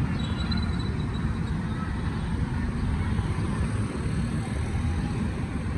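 JCB backhoe loader's diesel engine running steadily as it works in a riverbed, a continuous low rumble.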